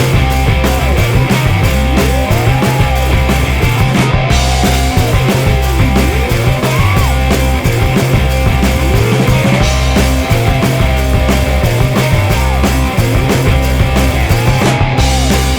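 Loud rock music with a driving bass line and drums, playing steadily.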